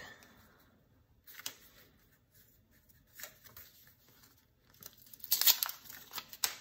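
Paper handling on a small sticky notepad: scattered soft rustles and taps as the pad is turned over and its sheets are lifted, with one louder, rasping rustle about five seconds in.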